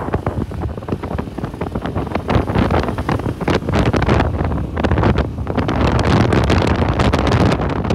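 Wind buffeting the microphone of a phone carried on a moving motorbike, over the bike's engine and road noise. Loud and gusty throughout.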